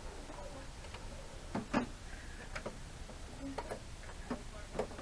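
Scattered light clicks and knocks from hands and tools working on a small Tecumseh mower engine, about half a dozen at irregular spacing, the loudest pair a little under two seconds in.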